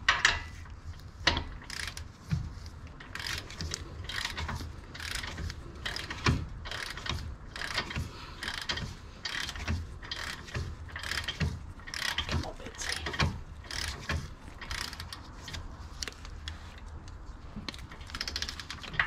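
Hand ratchet clicking as it runs in the lower ball joint bolts, a steady series of short clicks at about two a second.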